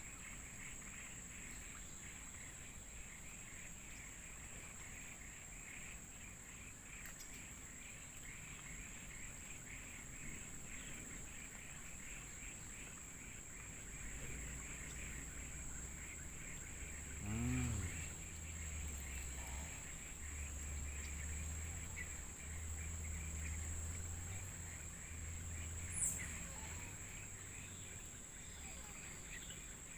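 Jungle riverbank wildlife chorus: a steady high-pitched insect drone over a dense, rapid chirping of small animals. A low hum of unclear source joins about halfway through, with a short louder swell in it, and there is a single sharp click near the end.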